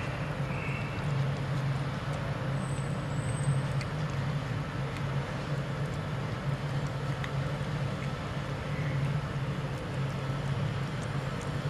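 A steady low mechanical hum, with a few faint clicks.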